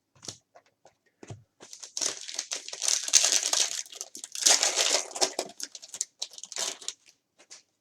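Foil trading-card pack wrapper being torn open and crinkled, with the cards rustling out of it; the crinkling is heaviest for several seconds in the middle.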